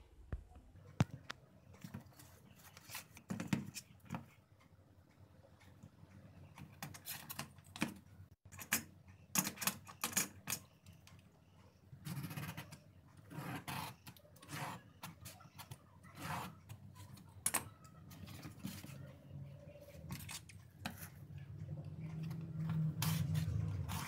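Marker pen scratching over cardboard as lines are drawn along a plastic ruler and around a battery pack, mixed with irregular clicks and taps of small parts and the ruler being handled on a wooden table.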